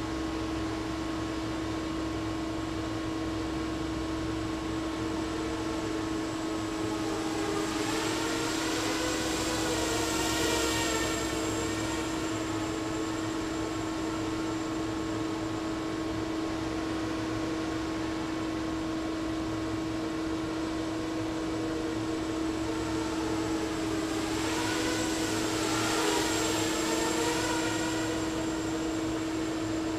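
Diatone 250 racing quadcopter's motors whining as it flies past twice, about ten seconds in and again near the end, the pitch wavering up and down with the throttle and each pass swelling and fading. A steady hum runs underneath.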